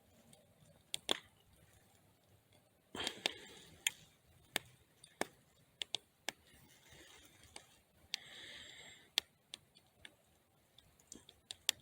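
Scattered sharp clicks and light knocks, a dozen or so spread over the stretch, with a short rustle about three seconds in.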